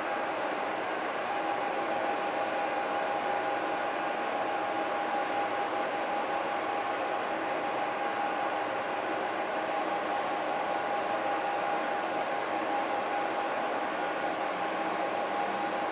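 Steady mechanical hum with a constant mid-pitched whine over an even hiss, unchanging throughout.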